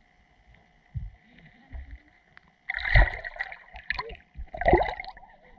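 Splashing and gurgling water heard from an underwater camera as a hooked fish is pulled in near the surface: soft low thumps in the first two seconds, then louder splashes about three seconds in and again near the end, over a faint steady whine.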